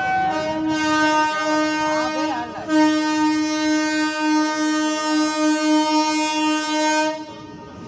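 Electric locomotive's air horn sounding one long, steady blast as the train approaches, with a brief break about two and a half seconds in before it resumes louder for about four more seconds and cuts off near the end.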